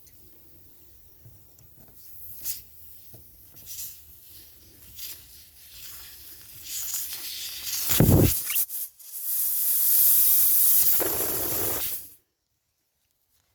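A few small knocks and a heavy thump, then a steady hiss of spray lasting about three seconds that cuts off sharply.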